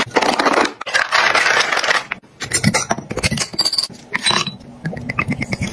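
Irregular scraping, rustling and small clicks of household items being handled on a counter, with a short high ring about four seconds in.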